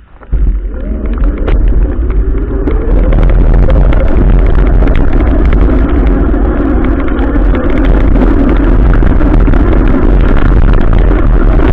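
Adventure motorcycle's engine coming in suddenly with a short rising rev, then running steadily and loud under a heavy low rumble of wind on the microphone.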